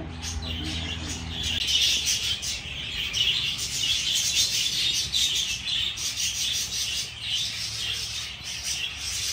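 A flock of parakeets chattering, with a dense, continuous mix of chirps and squawks from many birds at once.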